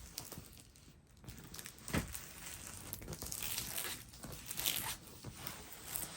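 A plastic-covered diamond painting canvas being handled and rolled back, its film crinkling and rustling irregularly, with a sharp tap about two seconds in.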